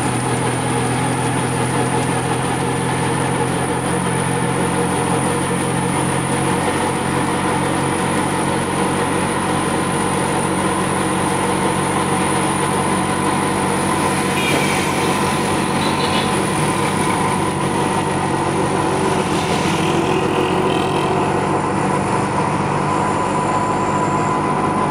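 Vehicle engine running steadily with road noise, heard from inside a moving vehicle. The engine note changes about six seconds in, and other traffic passes.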